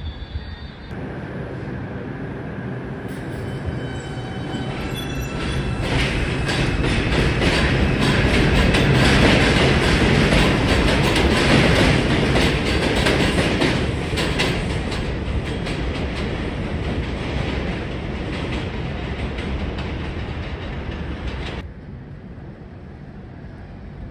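R142 subway train passing through an elevated station. Its wheels clatter over the rail joints in a rumble that builds, peaks about ten seconds in and fades, with a thin high wheel squeal a few seconds in. The sound cuts off abruptly near the end.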